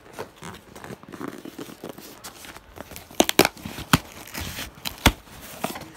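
Cardboard shipping box being torn open by hand, with rustling and crinkling throughout and several sharp, loud snaps between about three and five seconds in.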